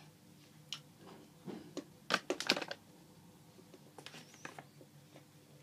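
Plastic sweets packet of Milkybar giant buttons crinkling and clicking as it is handled, with a cluster of louder crackles about two seconds in and a few more clicks around four seconds as it is set down on the floor.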